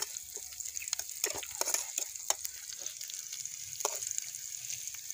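Chopped onion and garlic sizzling in hot oil in a frying pan while a metal spoon stirs them, scraping the pan every second or so. The scrapes thin out near the end.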